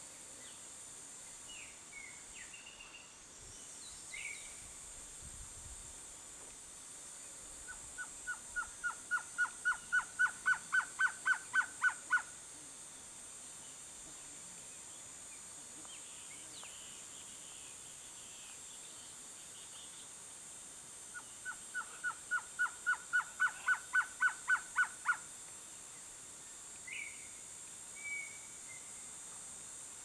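Male blue-crowned trogon (Trogon curucui) singing: twice, a run of about twenty short notes at about four a second, starting faint and growing louder over some four seconds. A few faint, brief chirps from other birds come between the songs.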